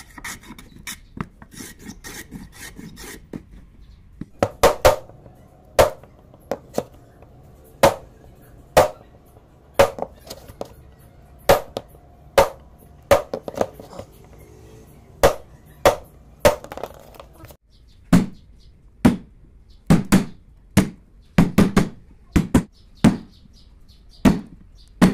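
Hammer striking a chisel to pare the corner of a wooden hand-plane body: sharp, separate knocks about one a second, sometimes two in quick succession, starting about four seconds in after a few lighter clicks.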